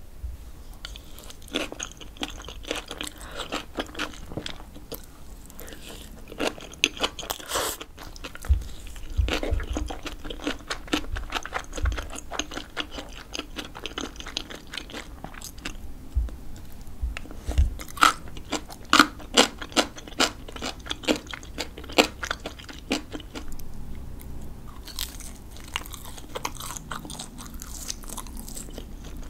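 A person chewing food close to the microphone: many short, crisp crunching bites and wet chewing sounds, easing off briefly about halfway through and again a few seconds later.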